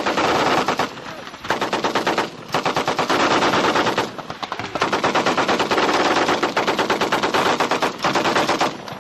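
M60 machine guns firing bursts of automatic fire, one after another with only brief lulls, including one long burst of about three seconds in the middle.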